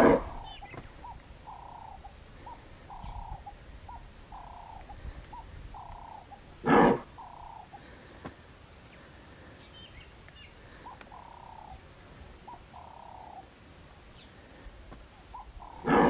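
Three short, loud animal calls, at the start, about seven seconds in and at the end, over a bird giving a short arched note again and again, about once a second, until a couple of seconds before the end.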